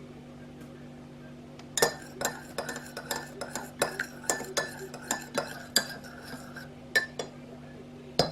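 Metal teaspoon stirring tea in a mug, clinking against the sides about three times a second, with a few quicker taps near the end, over a faint steady low hum.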